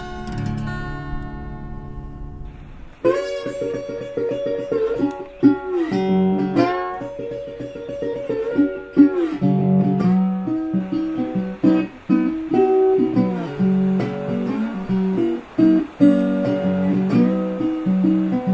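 Background music on acoustic guitar, plucked notes; a new, livelier passage starts sharply about three seconds in.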